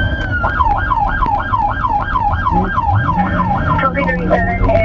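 Police car siren going from a long wail into a fast yelp, about four rises and falls a second, then changing to a choppier tone near the end.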